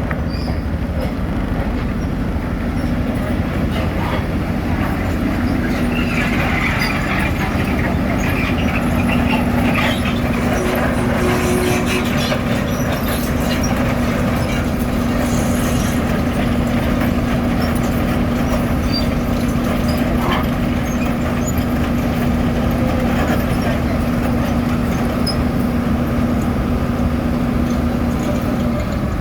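Heavy diesel road-paving machinery running steadily, with a constant hum that holds from about two seconds in until just before the end.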